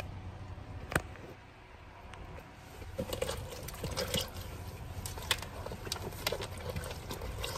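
A wet cooling towel being dunked and squeezed in a collapsible bucket of water: faint, irregular sloshing and dripping, with a sharp click about a second in.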